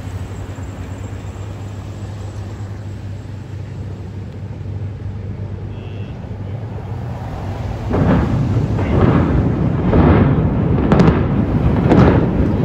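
Building-implosion demolition charges going off: a sudden series of booms, about two a second, starting about two-thirds of the way in. Before them only a steady low hum.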